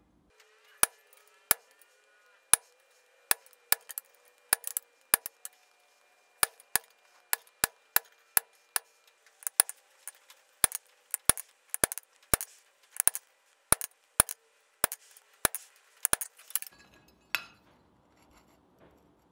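Hand hammer tapping a small chisel to cut whisker lines into a cold steel cat figurine on the anvil: a long series of sharp metallic strikes, about two a second and some in quick pairs, which stop about three seconds before the end, followed by one short knock.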